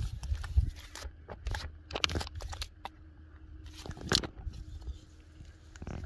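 Scattered thumps and rustles as a freshly landed fish flaps on wet sand and is grabbed by hand, over a low rumble.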